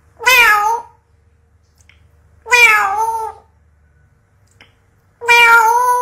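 African grey parrot imitating a cat's meow: three drawn-out meows, each longer than the last.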